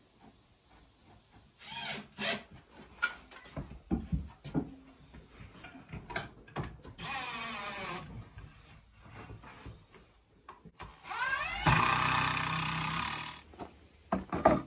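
Knocks of lumber being handled, then a cordless drill driving a screw into 2x4 framing: a short run with a rising whine as it spins up, then a longer, louder run of about two seconds. The screw is being set at an angle (toenailed) through the 2x4.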